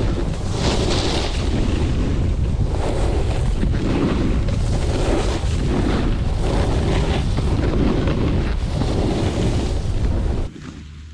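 Wind rushing over a pole-mounted action-camera microphone, mixed with a snowboard's edge scraping and carving across groomed snow at speed. The rush swells and fades in waves about once a second and drops away suddenly near the end as the ride slows.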